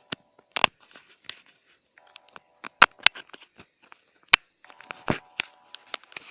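Irregular sharp clicks and crackles, some loud, over a faint held chord that fades in and out.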